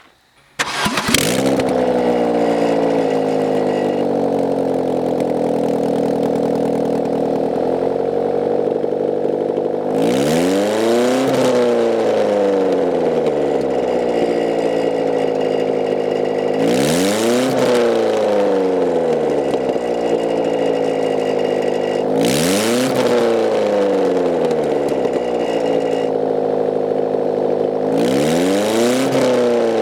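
1993 Saturn SW2's 1.9-litre four-cylinder engine running loud with no exhaust manifold or any exhaust at all, straight out of the open exhaust ports. It starts about half a second in, runs steadily, then is revved up and let fall back four times.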